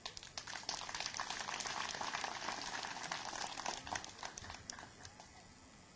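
Crowd applauding: a dense patter of clapping that starts suddenly, holds for about four seconds and dies away.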